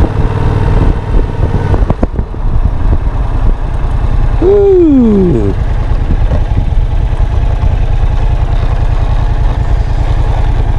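Yamaha FZ-07 motorcycle's parallel-twin engine running at low speed, heard on board, with one short rev about four and a half seconds in whose pitch rises and then falls.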